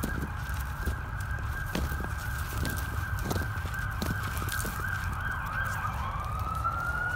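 Shovelfuls of dirt dropping into a small hole, a soft thud every second or so, under a steady high tone that starts rising in pitch near the end.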